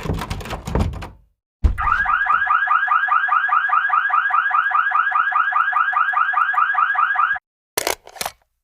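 A rattling clatter, then a thunk, then an alarm ringing in rapid pulses, about seven a second, for about six seconds before it cuts off abruptly. Two short noises follow near the end.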